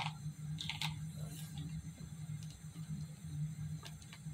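Faint clicks and light rustles of craft pieces being handled and set down, over a steady low hum.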